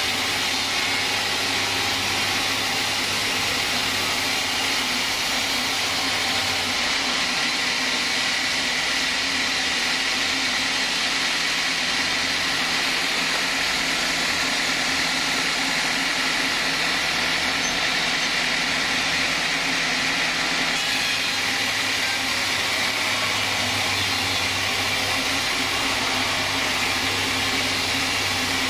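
Vertical band sawmill cutting lengthwise through a log, a steady, unbroken saw noise. A low hum underneath drops away for a long stretch in the middle and comes back near the end.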